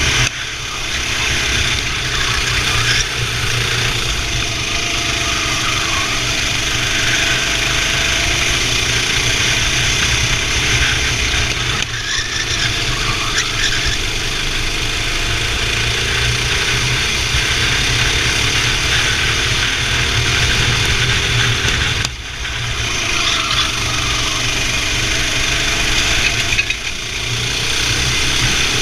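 Kart engine running hard and rising and falling in pitch as the throttle is worked through corners, with brief drops in level a few times where it backs off.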